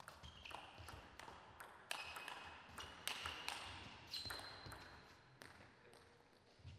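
Table tennis rally: the ball clicks off rackets and table in quick, uneven succession, with a short ringing ping on some hits. The strikes stop about five and a half seconds in, leaving only a couple of faint knocks.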